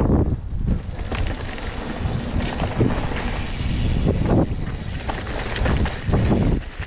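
Wind buffeting an action camera's microphone as a mountain bike rides along a dirt and gravel trail, with the rumble of the tyres and scattered short knocks from the bike going over bumps.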